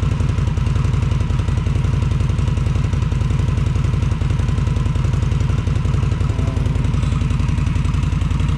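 2018 Indian Scout Bobber's liquid-cooled V-twin idling steadily through its stock exhaust, heard from directly behind the mufflers: an even, rapid low pulse.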